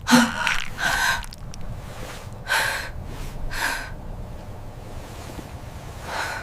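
A person gasping for breath: about five sharp, noisy breaths, several of them in quick pairs.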